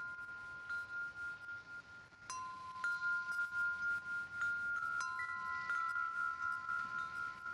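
Steady high ringing tones, two pitches held together like a sustained chime, re-sounding with a faint click about two seconds in and again about five seconds in; a third, higher tone joins just after five seconds.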